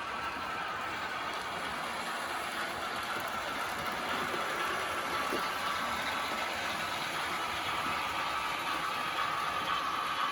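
Märklin model train running along the track: a steady rolling rattle with a constant hum, growing slowly louder.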